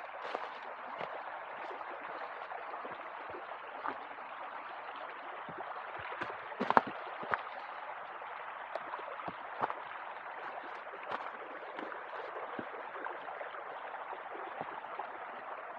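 Stream running over rocks: a steady rushing of water, with a few short sharp ticks, the loudest about seven seconds in.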